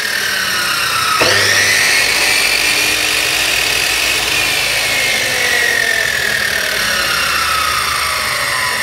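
Panda abrasive chop saw's brushed motor running with no load, its cut-off disc spinning freely during a test run to check for wobble. It is started again about a second in, and its whine rises quickly, then slowly sinks in pitch.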